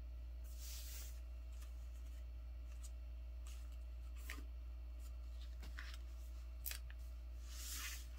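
A sheet of paper rustling and scraping in short scratchy brushes as it is handled and creased flat by hand, with a sharper crackle about two-thirds of the way through. A steady low hum runs underneath.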